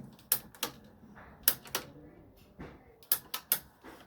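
Sharp plastic clicks and knocks in small clusters, about seven in all, from hands working the controls and parts of a battery-powered push lawn mower.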